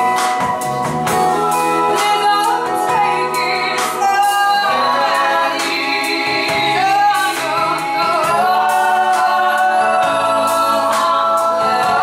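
A woman singing a slow rock song live into a handheld microphone, holding long wavering notes, backed by a band with electric guitar and drums.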